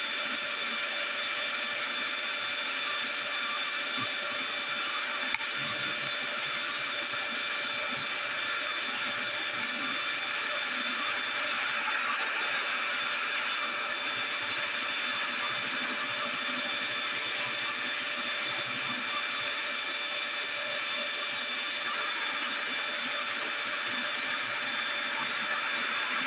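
Steady mechanical whirring with several high, fixed whining tones, unchanging throughout.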